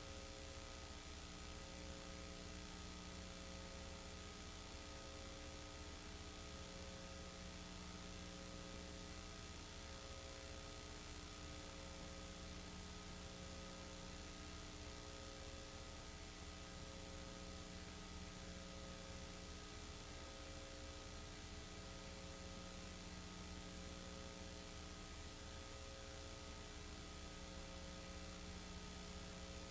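Steady electrical mains hum and hiss, with no other sound, as on the soundtrack of a transferred silent home movie. A faint tone pulses on and off about every second and a half.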